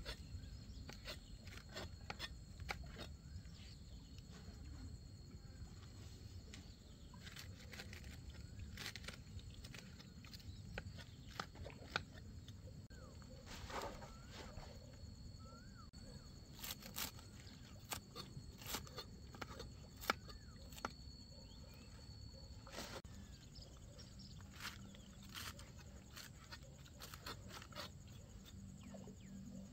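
Quiet outdoor ambience with scattered soft clicks and rustles. A faint steady high whine runs through most of it and stops about three quarters of the way in.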